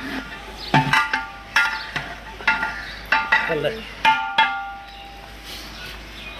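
A long metal stirring rod clanging against the rim of a large aluminium deg (cooking pot) while the biryani in it is mixed: six ringing strikes less than a second apart, stopping about four seconds in.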